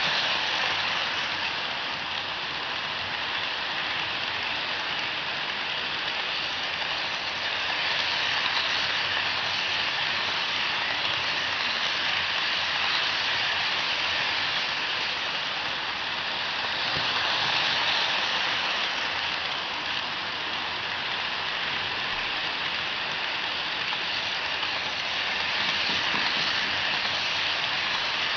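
Rivarossi NKP 765 Berkshire model locomotive running with a long string of model freight cars: a steady rushing rattle of many small wheels on the track and the motor's whir, swelling and easing a few times as the train goes round.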